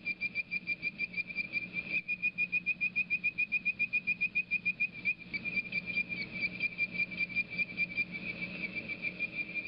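Bird-voiced frog calling: a long, rapid run of short, whistled, bird-like 'tweet' notes, with a faint low steady hum beneath.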